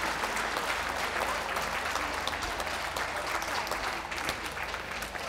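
Ringside audience applauding steadily, easing off slightly near the end.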